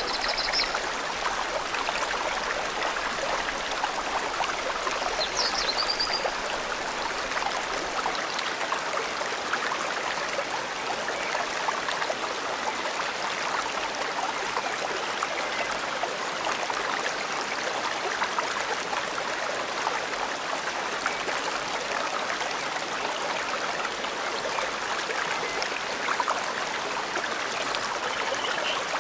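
Forest river flowing steadily, a continuous even rush of water. A few brief, high bird chirps come just after the start, around five seconds in, and near the end.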